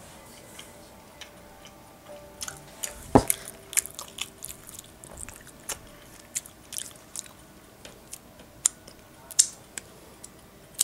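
Someone eating: biting and chewing crunchy food, with irregular sharp crackles starting about two seconds in and one loud thump a little after three seconds.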